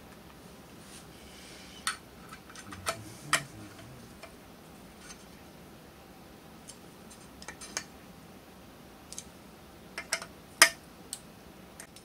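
Scattered sharp clicks and light metallic taps of a hand screwdriver and small parts being worked on an electric unicycle's hub motor side cover, the loudest tap a little before the end.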